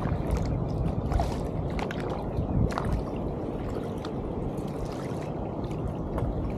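Kayak paddling: the paddle blades dip and splash, with water dripping and gurgling off them at irregular moments, over a steady low rumble.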